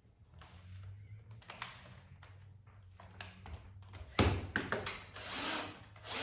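Wardrobe shelving parts being handled: light knocks and rustles, then a sharp knock about four seconds in, followed by a scraping, rubbing sound lasting about a second.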